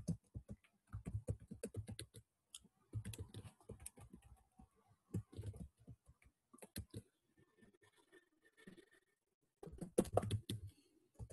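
Typing on a computer keyboard. The keystrokes come in irregular bursts, with a pause of about two seconds after the middle and a quick final run near the end.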